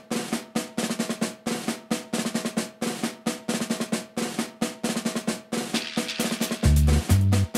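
Background music built on a fast, busy drum pattern with snare strokes several times a second; a deep bass line comes in near the end.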